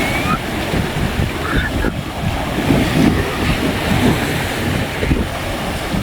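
Sea surf washing onto a beach, mixed with wind buffeting the microphone in a steady, loud rumble.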